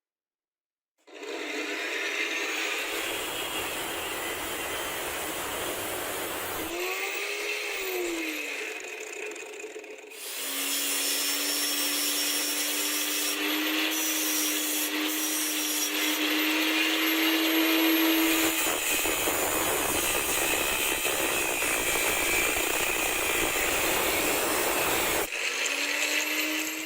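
A small power tool running and working against a workpiece with a rasping noise. Its motor pitch swells and drops about eight seconds in, holds a steady hum that creeps upward from about ten seconds, and spins up again near the end.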